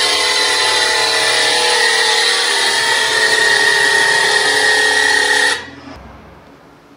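Small homemade 12 V battery-powered electric air pump running steadily at full load while it inflates a bicycle tyre, a high-pitched mechanical whine over its motor buzz. About five and a half seconds in it cuts off suddenly, the automatic pressure switch stopping it at its set pressure.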